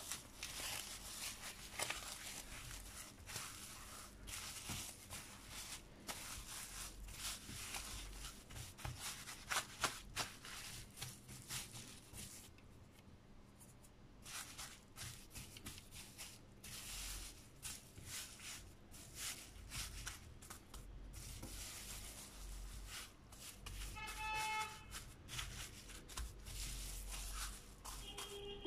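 Plastic stretch film crinkling and rustling with scattered crackles as hands roll and twist a film-wrapped cookie dough log on a stone countertop. A short pitched tone sounds about four seconds before the end.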